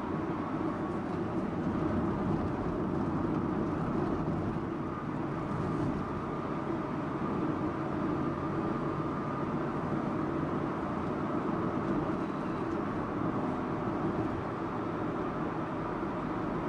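Subaru Impreza Sports Wagon (GG2) driving along, its flat-four engine and tyre noise making a steady running rumble.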